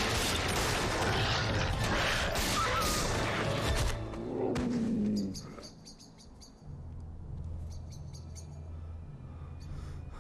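A volley of pistol shots over loud, dense film sound for about four seconds, then a short falling cry. After that comes a quiet low drone of film score with faint high chirping.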